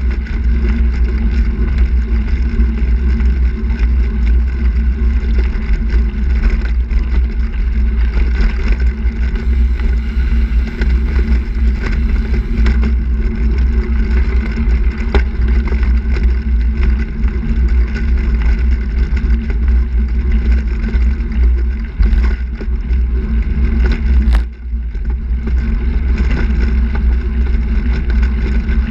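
Steady low wind rumble on the microphone, mixed with tyre and road noise, from a handbike riding at speed on asphalt.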